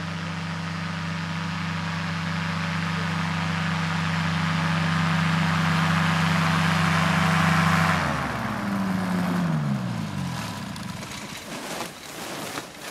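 Powered parachute's engine and propeller running steadily, growing louder as the craft rolls closer. About eight seconds in it is throttled back and the pitch falls away.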